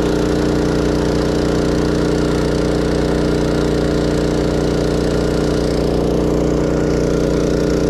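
Engine-driven water pump running steadily at constant speed, a loud even hum, as fire hoses draw water from a fountain.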